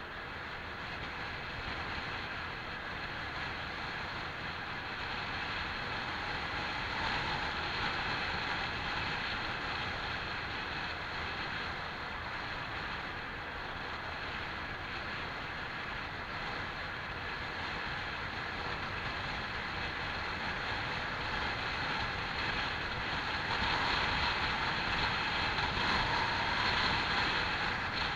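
Honda PCX scooter under way: steady wind rush over the microphone mixed with engine and road noise. It swells a little about a quarter of the way in and again near the end.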